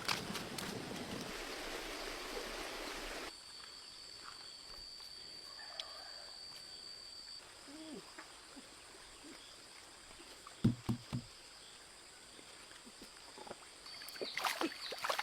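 Rushing stream water that cuts off abruptly about three seconds in. After it comes quieter outdoor sound with a thin steady high tone and a few short low thumps.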